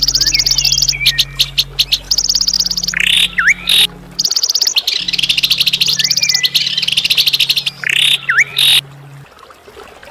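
Recorded songbird song used as 'masteran' training calls: very fast, high-pitched chattering trills broken by sharp, swooping whistled notes, the same phrase repeating roughly every four seconds as a loop. A low steady drone runs underneath.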